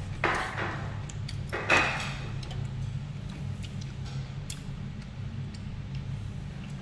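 Table eating sounds: two short slurps of noodles early on, then light scattered clicks of utensils against a bowl, over a steady low hum.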